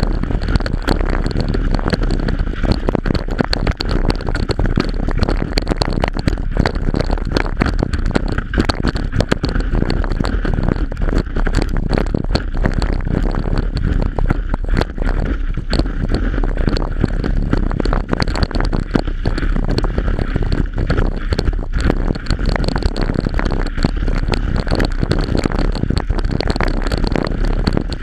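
Heavy wind buffeting on an action camera's microphone mixed with rushing, splashing water as a wakeboard is towed at speed. Loud and steady throughout, with a constant rapid flutter.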